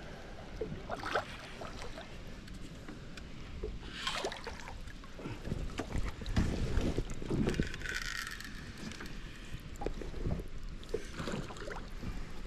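Irregular splashes and knocks at a small aluminium tinny as a hooked Murray cod is brought alongside to be landed, over wind rumble on the microphone. The loudest stretch comes about halfway through.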